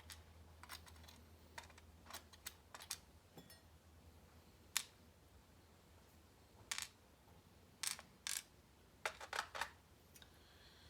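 Faint, scattered small metallic clicks and ticks from handling a disassembled Sargent lock cylinder and its small pins. There is one sharp click about halfway through and a few quick clusters of clicks near the end.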